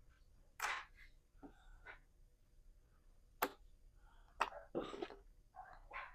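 Homemade glue slime being squished and stretched by hand: a few short squelches, with two sharp pops of trapped air about three and a half and four and a half seconds in.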